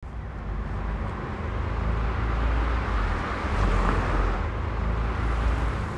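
Street traffic: a steady low rumble of cars going by, which swells a little about midway as one passes closer.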